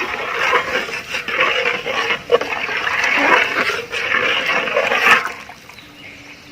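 A pot of water at a hard boil with rice in it, bubbling and splashing. The sound drops away about five seconds in.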